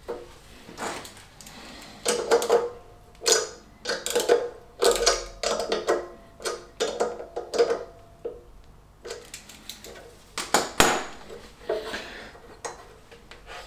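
Ratchet wrench clicking in short bursts with metallic clinks and brief ringing as the nuts of a Fiat 500 fan pulley are tightened.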